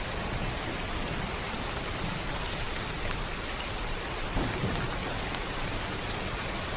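Heavy rain falling steadily on a rooftop, with a few sharp drip ticks here and there and a low rumble of thunder underneath.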